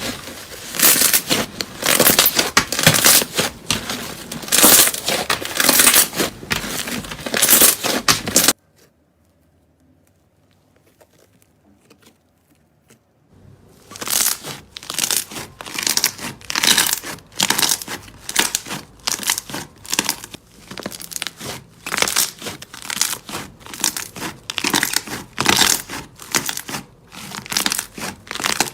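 Slime being squeezed and pressed by hand, giving dense runs of small pops and clicks. The sound cuts out about eight seconds in for several seconds of near silence, then comes back as irregular bursts of popping.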